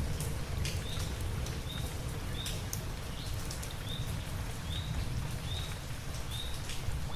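Steady rain with scattered drips and a low rumble underneath, as thunder dies away. A short high chirp repeats about once every second.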